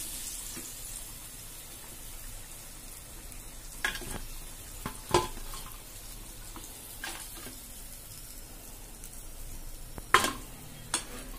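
Hot oil sizzling steadily around deep-fried chicken legs, with a few short sharp clicks.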